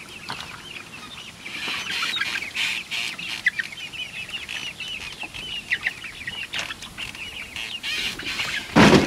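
A small flock of young chickens peeping and cheeping over and over, with many short high calls. A loud thump near the end.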